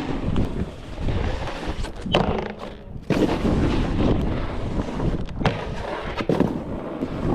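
Snowboard riding hard-packed snow: wind rushing over the microphone and the board's edges scraping, broken by several sharp thuds from the board hitting and landing, the first about two seconds in.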